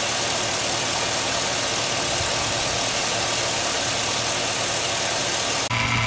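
Chevrolet Silverado pickup engine running, heard close to the serpentine belt and pulleys as a steady, even whooshing noise. Just before the end it cuts to a Harbor Freight 3 CFM two-stage vacuum pump running with a steady low hum.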